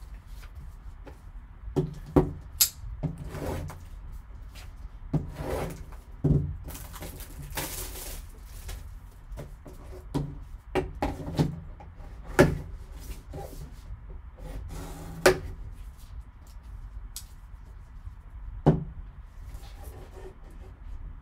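Gloved hands handling and opening a sealed cardboard trading-card box: rustling and scraping of cardboard and wrapping, with several sharp taps and knocks as the box is set down and its sleeve worked.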